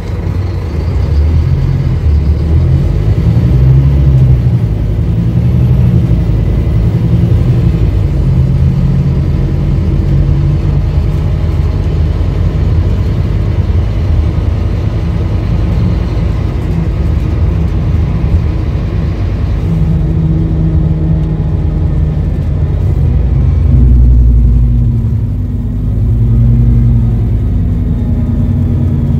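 Scania K310UB city bus's rear-mounted diesel engine heard from inside the passenger cabin, pulling away as the light turns green and accelerating, the engine note shifting as it goes up through the gears, then running along at road speed with tyre and road rumble.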